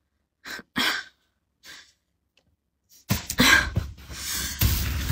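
A few short breathy exhalations, then a loud rustling handling noise with a low rumble close to the microphone from about three seconds in, as the fleece robe is moved against the phone.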